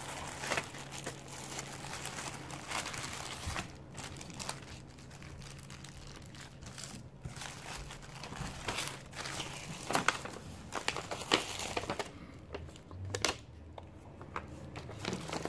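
Plastic wrapping and paper crinkling and rustling as packaged stationery is handled and unwrapped, with a couple of louder crackles and taps about ten seconds in.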